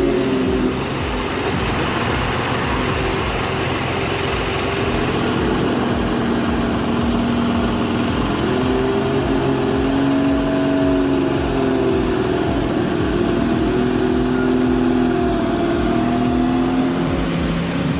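Heavy logging truck's engine running steadily, its pitch rising and falling slowly.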